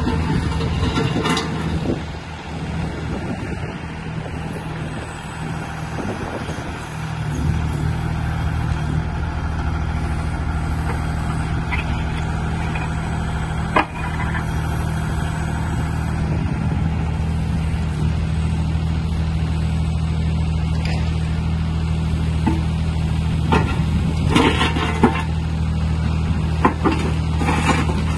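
Mini excavator's diesel engine running steadily, getting louder about seven seconds in, with a few sharp metal clanks near the end as an attachment is handled.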